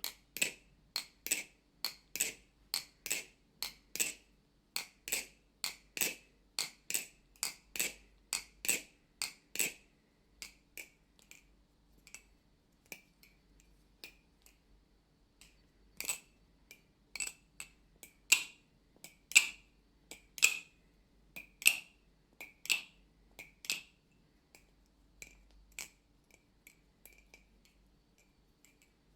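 Balisong (butterfly knife) flipped with its pivots freshly oiled with a thick oil: a run of sharp clicks and clacks as the handles swing round and strike. The clicks come about two a second at first, then more sparsely.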